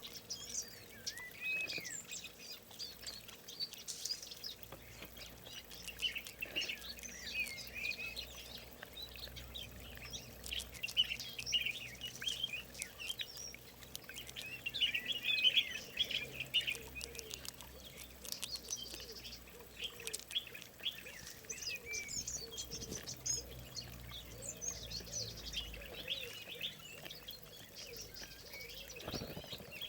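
Several small birds chirping and calling at once, a dense chorus of short, overlapping chirps and twitters that keeps going without a break.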